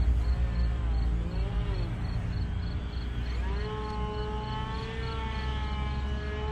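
E-flite Edge 540QQ RC plane's small 3S electric motor and propeller whining as it flies overhead. The pitch dips and then rises about three and a half seconds in to a steadier, higher note, with a low rumble underneath.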